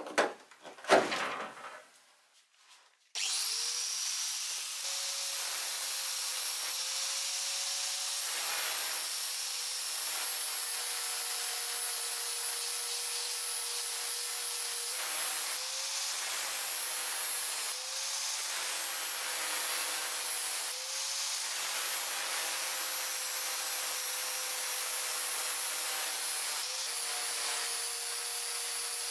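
A few metal knocks, then an angle grinder with an abrasive disc starts about three seconds in and runs steadily with a high whine, grinding rust off the steel of an antique coal iron clamped in a vise. Its pitch shifts slightly now and then as the disc bears on the metal.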